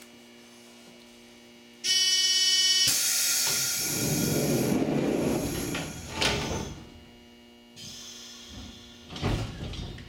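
A buzzer sounds for about a second as the departure signal, then the commuter train's doors slide shut with a loud hiss of compressed air that fades over a few seconds. More air hisses and a low thump near the end, as the train readies to pull away.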